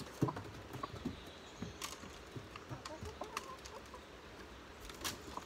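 Hens clucking quietly while they feed, with a few scattered sharp taps.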